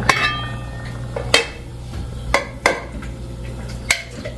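Metal cookware clinking and knocking on the stove, with about five sharp knocks spread over the few seconds. The first, at the very start, rings briefly like metal.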